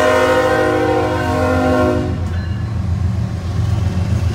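BNSF freight locomotive's air horn sounding a steady multi-note chord, cutting off about two seconds in; a low steady rumble continues underneath.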